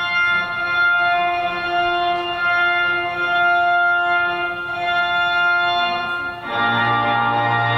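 Electric organ playing long held chords. About six and a half seconds in, it moves to a fuller chord with a deep bass note.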